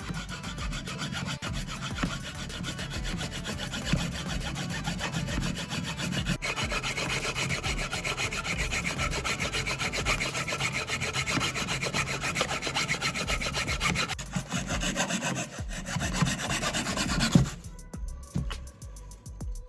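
A drill bit being sharpened by hand against an abrasive, making quick repeated rasping strokes of metal on the abrasive. The rasping ends near the end with one sharp knock.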